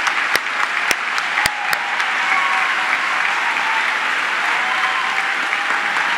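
Large audience applauding steadily, with a few sharper, louder claps close by in the first two seconds.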